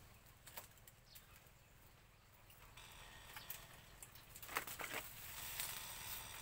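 Dry bamboo stems and leaves crackling and rustling as a person pushes through a bamboo thicket: scattered light cracks, with a louder cluster of snaps about four and a half seconds in.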